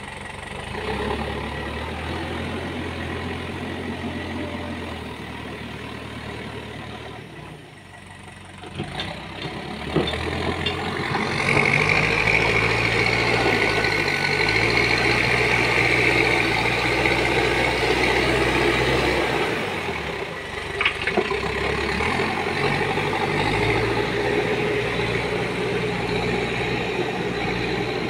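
Backhoe loader's diesel engine running and changing revs as the machine drives and works its front bucket. About a third of the way in it revs up and runs louder with a high whine for several seconds, and there are a couple of sharp knocks.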